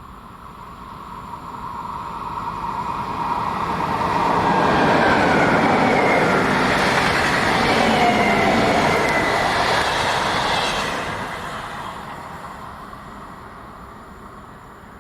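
A train passing by: its rumble and rail noise build up over the first few seconds, are loudest from about four to ten seconds in, then fade away. A few faint, thin, gliding high tones ride on top while it is loudest.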